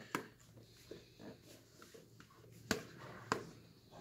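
Spatula knocking and scraping against a mixing bowl as mascarpone cream is tipped and scraped out onto the ladyfingers: a few sharp knocks with softer scrapes between, the loudest two about two thirds of the way in and half a second later.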